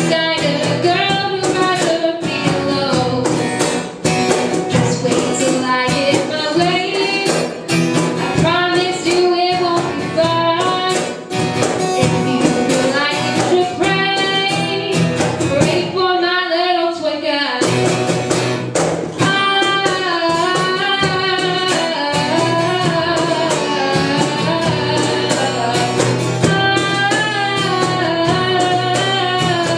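A girl singing a song live into a microphone, accompanied by a strummed acoustic guitar. The guitar stops for a moment about halfway through while her voice carries on alone.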